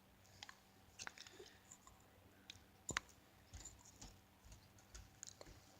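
Slime being squished and pulled by hand, giving faint, irregular clicks and small wet pops, with one sharper click about three seconds in.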